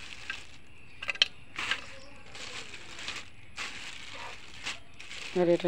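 Freshly caught small fish being handled on a wet concrete floor and put into a steel bowl of water: irregular wet slaps and rustles, with a sharp clink about a second in. A woman's voice starts near the end.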